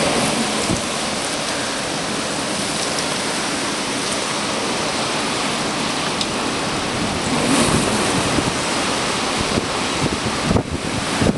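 Typhoon wind and heavy rain: a loud, steady rushing hiss that swells in a gust a little past halfway, with wind buffeting the microphone in low thumps near the end.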